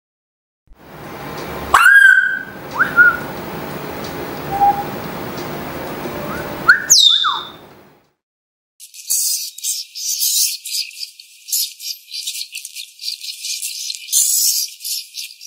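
Bird calls: a few loud, sharp whistled screeches that swoop up and down over a steady background hiss. After a short pause comes a rapid, high-pitched crackling chatter.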